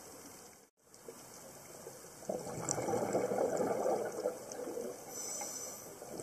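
Underwater sound through a diver's camera: a low hiss, then, about two seconds in, a louder bubbling rush of a scuba diver's exhaled regulator bubbles that eases a little near the end. The sound cuts out completely for a moment just under a second in.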